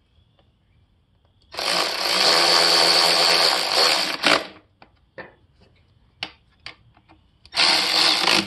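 Cordless electric ratchet spinning in the exhaust silencer's mounting bolts: one steady run of about three seconds, then a shorter run near the end, with a few sharp clicks of the socket and bolts being handled in between.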